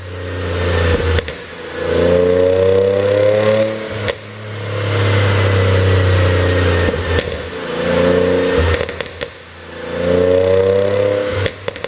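2010 Audi S4's supercharged 3.0 TFSI V6 revved up and held about four times, the revs falling away between blips. As the revs drop the exhaust gives sharp pops and crackles, most plainly about four seconds in and near the end: the sound of a pop-and-crackle tune.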